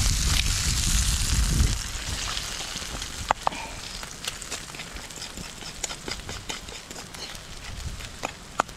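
A loud low rumble for the first second and a half or so, then a campfire crackling with irregular sharp pops and snaps.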